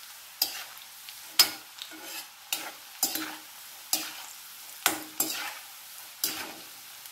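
Diced elephant yam deep-frying in hot oil in a steel kadai, sizzling steadily, while a perforated steel spoon stirs through it and scrapes against the pan about every half second to a second, one stroke about one and a half seconds in standing out louder.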